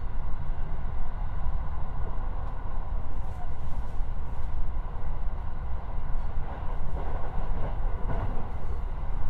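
Cabin sound of a JR West 223-series electric multiple unit running at speed: a steady low rumble of wheels on rail, with faint higher ticks now and then.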